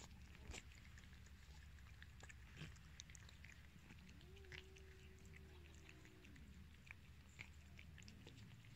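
Faint wet chewing and smacking of cats eating chunks of wet cat food, heard as many small clicks. About four seconds in, a cat gives one long, low, steady call lasting a couple of seconds, then a short low sound near the end.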